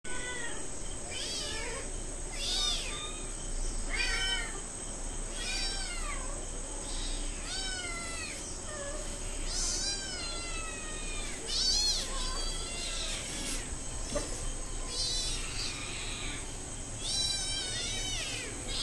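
Several hungry kittens meowing for food, a run of high, falling-pitched meows about every second or two.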